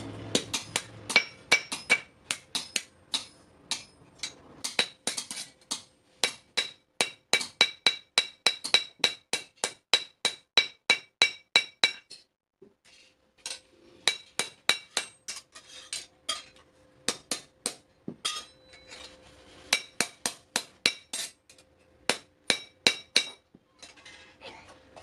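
Hand hammer striking steel on an anvil in a steady rhythm of about two to three blows a second, each blow ringing. The hammering stops briefly about twelve seconds in, then starts again.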